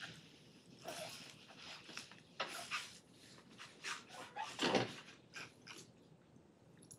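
Scattered computer keyboard keystrokes, irregular clicks with one louder knock about two-thirds of the way through.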